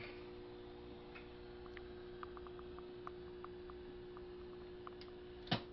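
Faint, steady mains hum from the powered-up radio bench gear, with scattered light ticks and a sharper click near the end.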